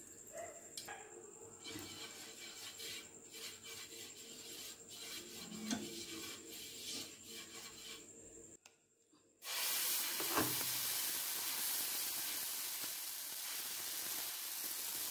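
Oil crackling faintly on a hot dosa pan; after a brief gap, a much louder steady sizzle as chickpea-and-rice adai batter is spread over the hot pan with a steel spoon, with one light knock soon after it starts.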